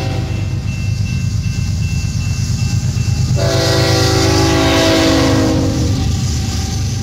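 A diesel locomotive's air horn sounding a multi-note chord over the steady rumble of a passing freight train: one blast ends just after the start, and a longer blast of about two and a half seconds begins about three and a half seconds in.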